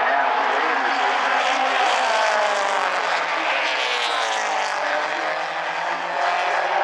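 Several mini stock race cars running at racing speed, their engine notes rising and falling as they go by. About three seconds in, one engine's pitch dips and climbs again as it passes.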